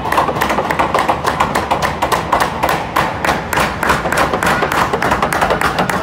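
Ice hockey arena crowd clapping and banging in a sustained minute of noise: a dense run of sharp claps and thuds over a steady hum of voices.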